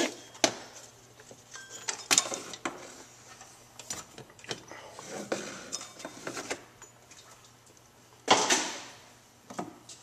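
Hand work on an engine's front accessory drive: a wrench clinking on the serpentine belt tensioner and the belt being pulled off the pulleys, heard as scattered metallic clicks and knocks. A louder half-second clatter comes about eight seconds in.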